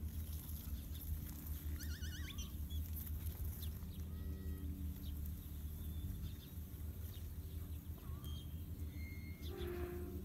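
Scattered bird chirps, including a quick trill about two seconds in, over a steady low rumble.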